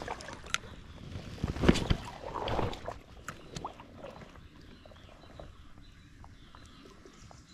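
Water splashing and sloshing with small knocks and clicks, loudest for a second or so about one and a half seconds in, then scattered faint ticks.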